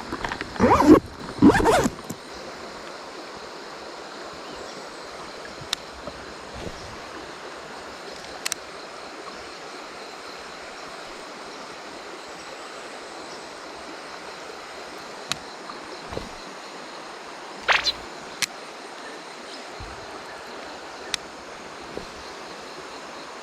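Mountain stream water running steadily, with a few loud knocks in the first two seconds and scattered sharp clicks after that.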